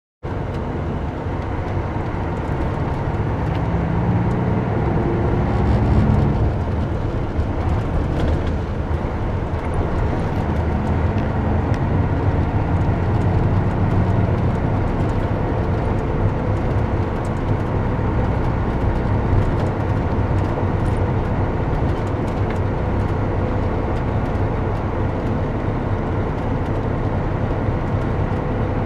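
Scania K124 coach's six-cylinder diesel engine running under way, heard from inside the passenger cabin together with road noise. The engine note climbs about four to six seconds in as the coach picks up speed, then settles into a steady run.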